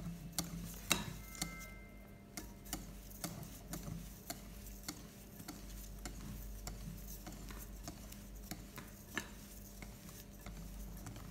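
Faint, irregular taps and clicks of a spoon against a mixing bowl, with light scraping, as flour and cocoa powder are spooned into a beaten egg-and-sugar batter a little at a time. A couple of taps in the first two seconds ring briefly.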